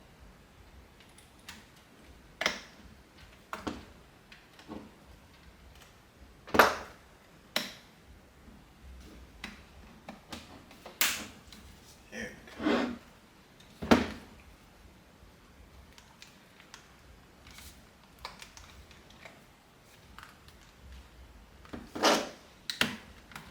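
Irregular clicks, knocks and snaps of plastic and metal car parts being handled and fitted while a steering wheel is reassembled, a few of them sharper and louder than the rest.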